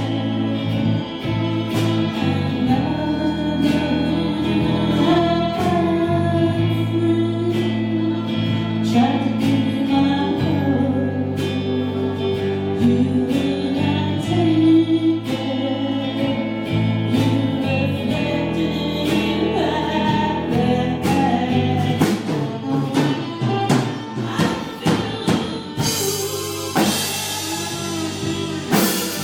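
A band playing a song with sung vocals over a steady drum beat; cymbals crash about three seconds before the end.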